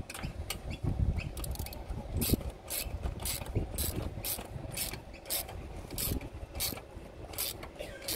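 Ratchet driver with a socket on a long extension being worked back and forth to tighten a mounting bolt. Its pawl clicks in short runs, about two or three a second.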